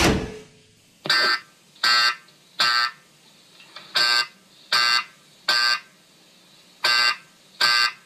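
A thump at the start, then a fire alarm sounding in groups of three short blasts with a pause between each group: the temporal-three evacuation pattern.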